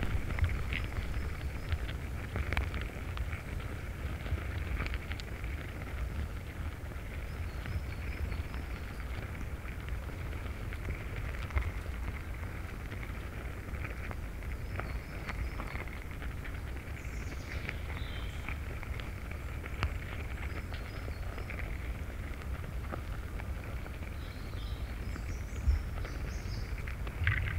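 Wood ants moving over the needle thatch of their nest, picked up by contact microphones: a dense, steady crackling and fizzing with scattered sharper ticks.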